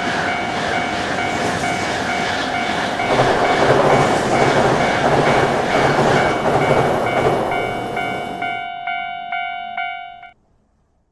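Japanese level-crossing warning bell clanging steadily while a Shinkansen bullet train rushes past, loudest in the middle of the pass. The train noise cuts off about nine seconds in, the bell rings alone for a moment, and then it stops.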